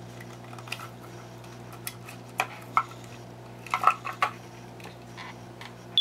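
Scattered light clicks and knocks of hard plastic being handled: an old Sunbeam ionization smoke detector being worked over at its battery compartment and test button, which it is failing. A steady low hum runs underneath.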